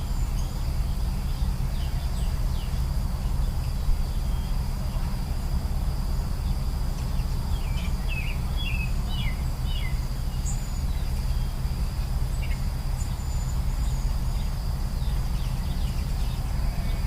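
Outdoor nature ambience: a steady high insect drone, like crickets, with a flurry of short bird chirps about halfway through and scattered chirps elsewhere, over a steady low rumble.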